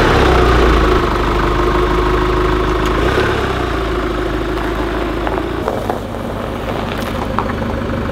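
Chevrolet Colorado ZR2 Bison's 2.8-litre four-cylinder Duramax turbodiesel running steadily just after being started, a little louder at first and easing down after a few seconds.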